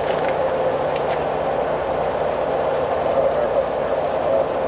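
Diesel engine idling steadily, with a few faint ticks about a second in.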